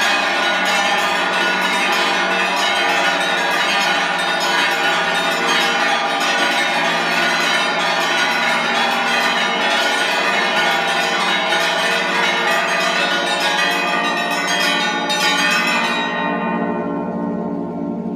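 The monastery's belfry of 462 bells rung together in a dense, continuous peal of many overlapping strokes. About sixteen seconds in the striking stops and the bells ring on, the higher ones dying away first.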